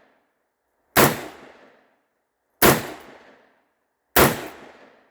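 Three single gunshots about a second and a half apart, each followed by a short fading echo.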